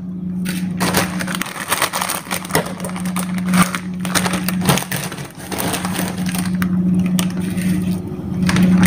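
Dry, brittle mung bean vermicelli crackling and snapping as the hard bundles are handled, pressed and broken into a plastic bowl, with plastic packaging rustling. A steady low hum runs underneath.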